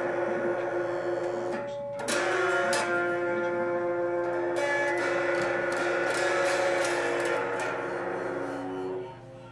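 Small electric guitar strummed: a ringing chord stops just before two seconds in, then a new chord is struck and left to sustain, changing slightly partway and fading near the end.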